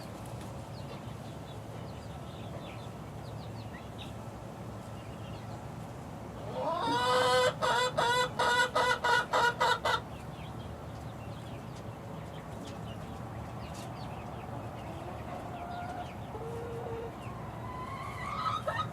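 Six-week-old chickens making soft scattered peeps and clucks, with a loud run of rapid squawking calls lasting about three seconds near the middle and another starting at the very end. A low steady hum sits underneath.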